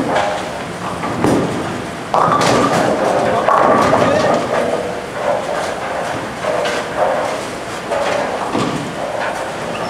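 Bowling ball rolling down a wooden lane and crashing into the pins about two seconds in, the pins clattering for about two seconds. Shorter pin crashes from neighbouring lanes keep sounding before and after it.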